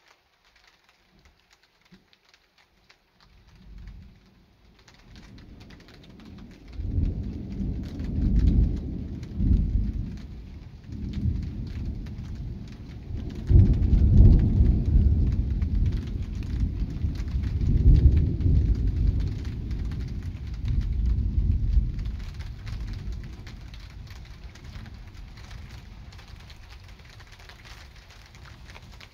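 A long rolling peal of thunder: a low rumble builds a few seconds in, surges loudly several times, then slowly fades away near the end.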